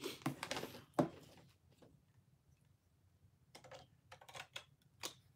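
Plastic parts of a Ryusoulger robot toy clicking as they are detached and handled: a cluster of sharp clicks in the first second, a quiet stretch, then more clicks near the end.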